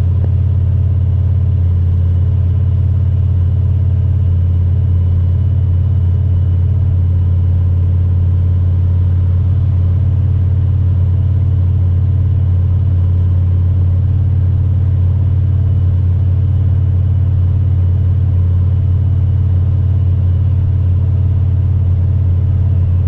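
The truck's LQ4 V8 and drivetrain drone steadily at highway cruise, heard from inside the cab with no revving or change in pace. The engine is running with a light misfire, later traced to a split number 8 spark plug wire.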